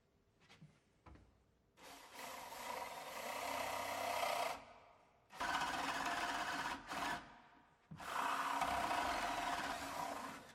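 Power drill with a flat (spade) bit boring a hole into the edge of a timber door, in three runs of a few seconds each with short pauses between them.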